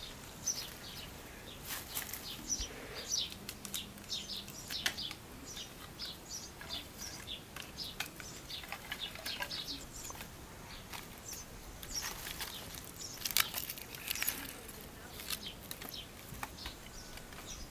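Small birds chirping in quick, scattered high calls, with a few sharp clicks and light rustling from dry grass and twigs being handled and laid for a fire.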